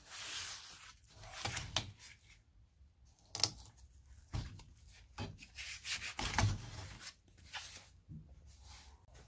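A heavy Sissoo (Indian rosewood) bowl blank is shifted and turned on a workbench. It makes scattered short rubbing and scraping sounds of rough wood and gloved hands against the bench, with a few soft knocks and quiet gaps between them.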